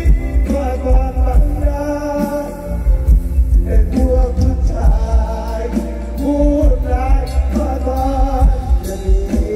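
Mor lam band music with a heavy bass beat, sustained melody lines and a singing voice.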